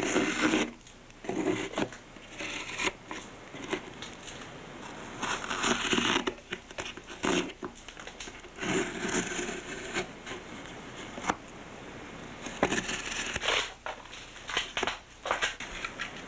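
Razor blade cutting and scraping through the excess fibreglass cloth and resin around a freshly glassed-on surfboard fin, once the lamination has set hard enough to trim. Irregular scraping strokes, each about half a second to a second long, with short pauses between them.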